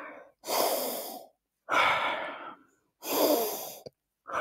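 A man breathing deeply in and out through cupped hands held over his nose, inhaling peppermint oil rubbed on his palms: a run of about four long, breathy breaths with short pauses between.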